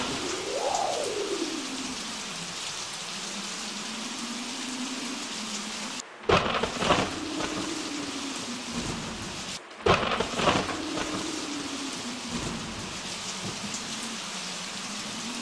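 Storm sound effect: steady rain with a howling wind rising and falling in pitch, and two loud thunderclaps about six and ten seconds in, each cutting in suddenly after a brief gap.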